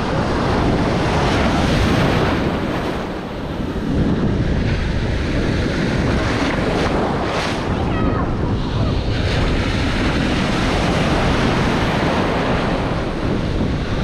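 Ocean surf breaking and foaming in the shallows close to the microphone, with wind buffeting the microphone.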